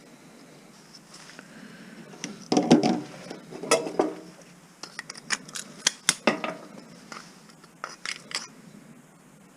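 Metal parts and hand tools clinking and clattering as a light fixture is taken apart, in a string of sharp knocks and clinks, the loudest a few seconds in.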